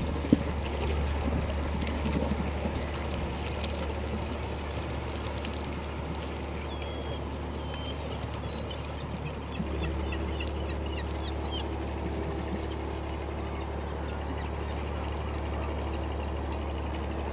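Cargo ship's engine running as the vessel manoeuvres astern into its berth, a steady low hum that grows louder about ten seconds in, when a higher steady hum joins it. There is a single sharp knock just after the start.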